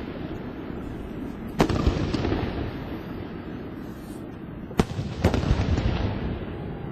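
Aerial fireworks shells bursting: a sharp bang under two seconds in and two more about half a second apart near five seconds, each followed by rumbling echo, with continuous booming and crackling from the display between them.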